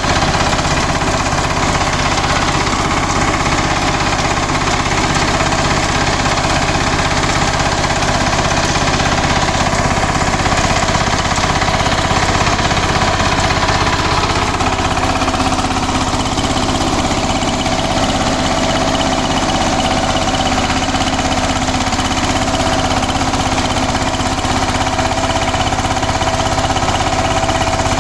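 KMW Mega T 15 power tiller's single-cylinder diesel engine running steadily; its tone shifts slightly about halfway through.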